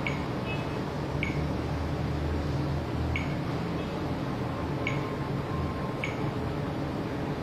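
Short high beeps from a Unihertz Atom XL rugged phone as its touchscreen is tapped through the walkie-talkie settings, five over several seconds at uneven spacing, over a steady low hum.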